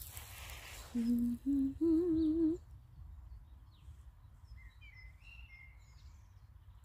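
A woman humming three rising notes, the last one held with a wavering vibrato. Faint bird chirps follow in the second half.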